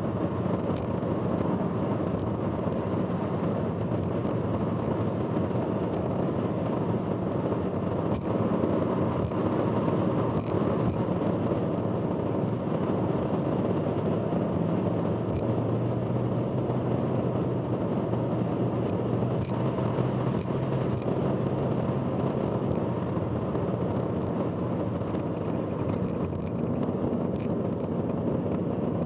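Steady road and engine rumble of a car cruising on an expressway, heard from inside the car, with irregular sharp clicks scattered throughout.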